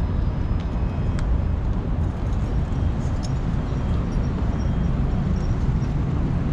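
Steady low rumble of vehicle road noise, with a few faint clicks.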